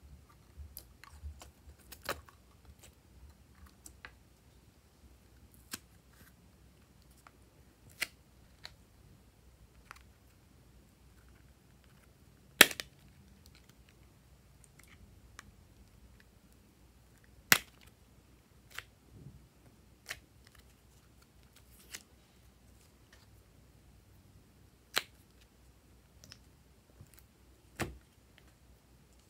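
Glossy slime being worked by hand, with trapped air popping in sharp, scattered clicks a few seconds apart; the loudest pop comes about halfway through.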